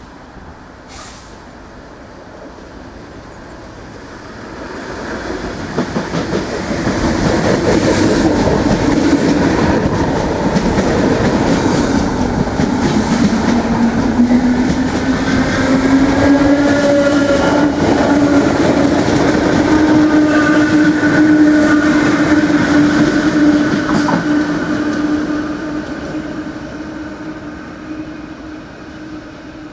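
Irish Rail DART electric multiple unit running past close by, with wheel rumble and rhythmic clicking on the rails. A whine rises in pitch and then holds steady. The sound swells over a few seconds, stays loud for most of the stretch, and fades near the end.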